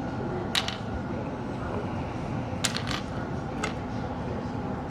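A few sharp, light clicks of small metal engine parts being handled, over a steady background hum.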